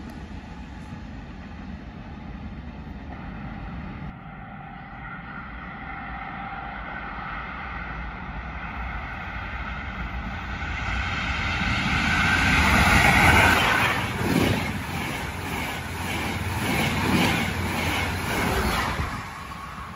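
Electric passenger train passing at speed on the adjacent track: a steady rise of rushing rail and wind noise as it approaches, loudest about two-thirds of the way in, then a quick series of regular wheel beats as the coach bogies pass, dropping away just before the end.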